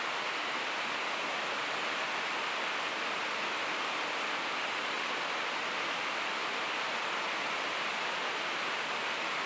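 Steady rushing of flowing river water, an even hiss without any distinct splashes or knocks.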